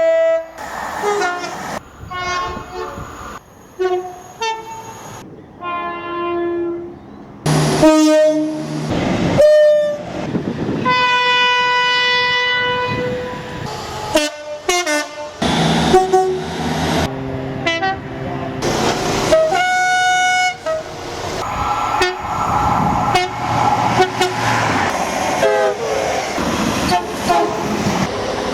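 A quick succession of train horns, each a separate short clip cut abruptly into the next, with rail running noise between them. One horn holds a long steady note about eleven to thirteen seconds in; near the end the horn notes slide down in pitch.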